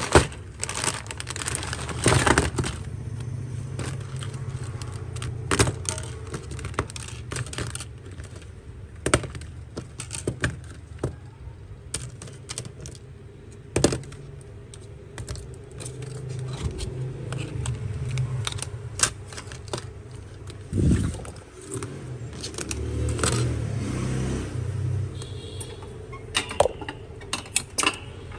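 Old Samsung mobile phone and small tools being handled on a work surface: irregular sharp clicks, clinks and scrapes of hard plastic and metal over a low steady hum.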